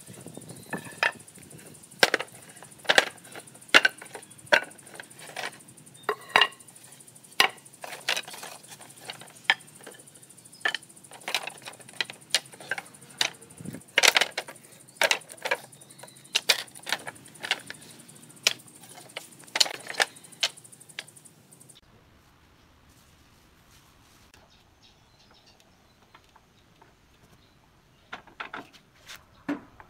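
Wooden boards knocking and clacking against one another as they are pulled from a pile and stacked, in sharp, irregular knocks about one or two a second. The knocking stops about two-thirds of the way through, and a few lighter knocks come near the end.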